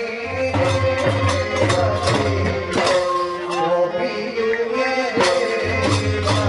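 Music track with hand drums, a deep bass pulse and a bending melody line.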